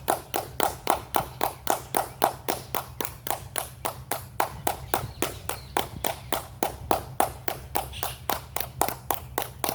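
Rapid hand clapping, about four to five claps a second, each clap followed by a short ringing echo off the stone Mayan temple. This is the temple echo that is said to answer claps with a bird-like sound.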